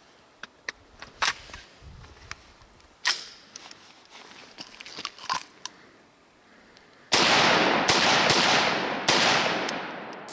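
.300 Blackout AR pistol: a few sharp metallic clicks while the gun is readied, then four shots fired in quick succession, each trailing a long echo.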